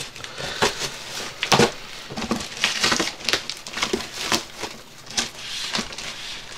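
Taped cardboard box being cut and torn open by hand, with irregular scraping, cracking and tearing of cardboard and tape and some crinkling of bubble wrap.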